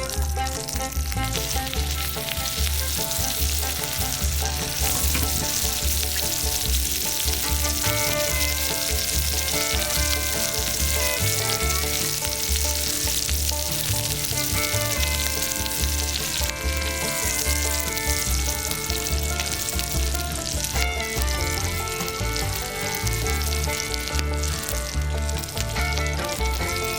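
Food sizzling as it fries, with a steady hiss, under background music with a regular bass beat and held melody notes.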